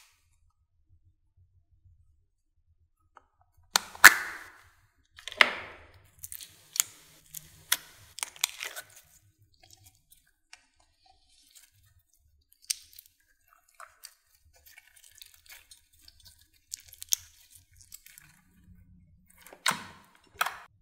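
Soft clear slime squeezed and pressed by hand, making wet squishes and sticky clicking pops. The loudest squelches come about four and five and a half seconds in, followed by a run of quick pops, then scattered soft clicks and two more squelches near the end.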